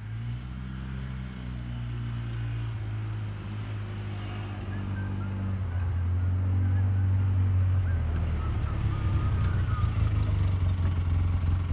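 Polaris Ranger side-by-side's engine running steadily as it drives up, growing louder as it approaches.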